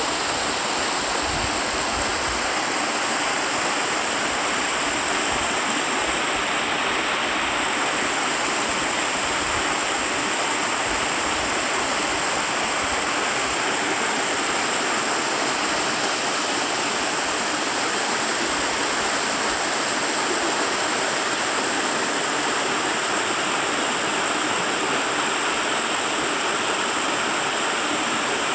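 Mountain waterfall pouring, a dense, steady rush of falling water, with a steady high-pitched whine above it.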